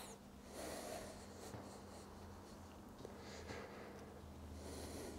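A man breathing with effort while doing chair dips: soft breaths every second or two. A low steady hum sits underneath.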